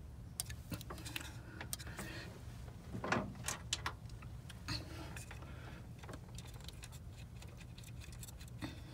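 Scattered light metallic clicks and clinks of hand tools and engine parts being handled, with one louder knock about three seconds in, over a steady low hum.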